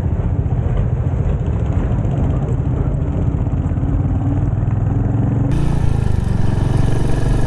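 Royal Enfield Hunter 350's single-cylinder engine running steadily under way, an even low beat, at low riding speed.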